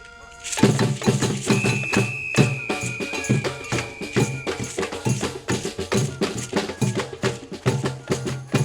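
Brazilian-style percussion group playing a fast rhythm on drums and small percussion, with deep drum strokes under dense, crisp strikes. A ringing note is cut off about half a second in as the full group comes in, and a high held tone sounds for about three seconds.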